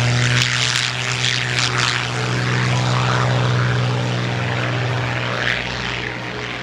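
Propeller airliner engines droning at takeoff power: a steady low hum with a rushing hiss over it, easing off slightly toward the end.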